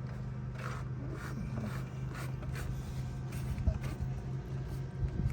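Light, intermittent scraping and rustling of a plastic door entry guard being handled and fitted against a Jeep Gladiator's door sill, over a steady low hum.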